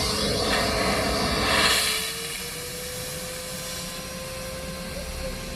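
Vacmaster Professional Beast wet/dry shop vacuum running: a steady motor whine over rushing air, a little louder for the first two seconds, with its pitch rising slightly about two seconds in.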